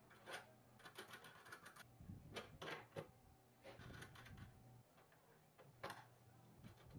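Faint, scattered clicks, taps and brief scrapes of hand work with small parts, over a low steady hum.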